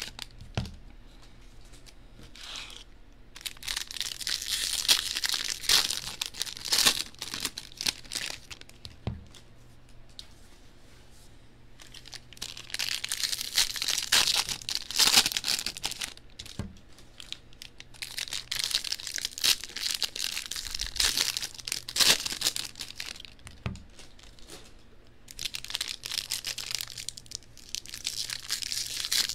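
Foil wrappers of Topps baseball card jumbo packs being torn open and crinkled by hand, in several bouts of crackling a few seconds long with quieter pauses between as the cards are pulled out.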